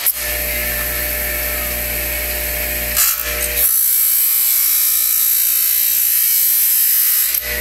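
Six-inch bench grinder running with a steady motor hum while its wheel grinds into a hard plastic blister pack, a hissing scrape. The grinding grows louder and hissier from nearly four seconds in until shortly before the end.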